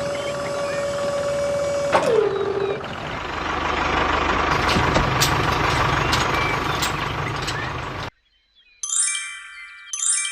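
A small motor running with a steady whine; about two seconds in there is a click and its pitch drops, as if it has been loaded. A louder, rougher rattling noise with scattered ticks follows for several seconds and cuts off suddenly, then two bright chimes sound about a second apart near the end.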